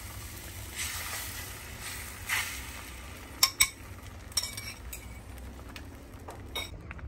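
Beaten eggs sizzling softly as they set in a hot greased frying pan, with a few sharp clinks of a fork against the ceramic bowl about three and a half seconds in.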